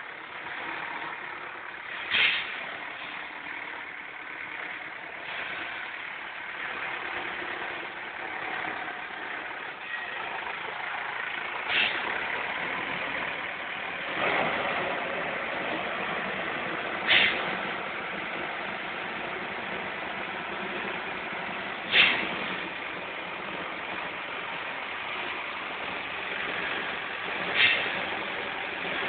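Escorts forklift truck's engine running as the truck drives about and raises its forks. Five short, sharp bursts stand out above the engine, several seconds apart.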